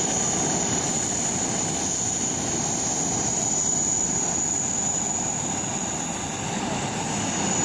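Airbus A380 under tow with its main engines shut down, rolling slowly past with its tow tug: a steady rushing noise with a constant high whine.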